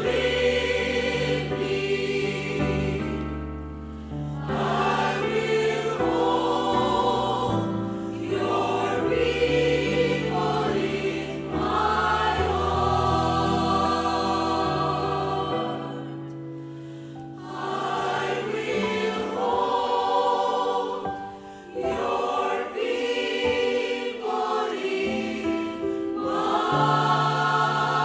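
A choir of voices singing a slow Christian song over long-held accompaniment notes.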